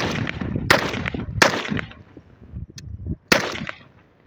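AK-47 rifle (7.62×39 mm) fired in single shots: three shots about 0.7 seconds apart, then a fourth about two seconds later, each shot followed by a short echo.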